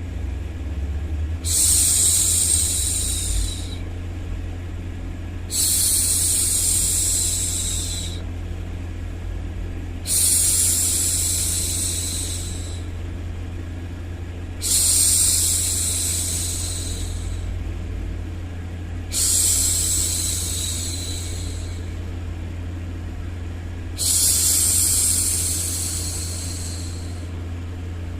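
A woman's voice shushing 'shhh' over and over, six long shushes of about two and a half seconds each with short pauses between, over a steady low white-noise hum: a baby-hushing sound.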